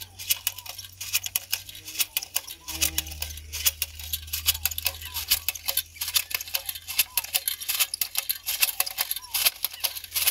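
Hand-operated matraca jab planter loaded with maize seed, clacking and rattling as it is carried and jabbed into the soil: a dense run of sharp, irregular metallic clicks.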